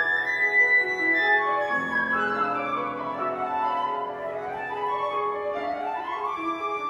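Flute and grand piano playing a contemporary classical duet: held flute notes over sustained piano chords, with a rising run of notes near the end.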